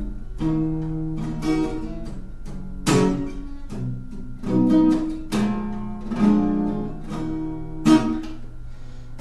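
Solo acoustic guitar playing the instrumental close of a song: chords picked and strummed about once a second and left to ring, growing softer near the end.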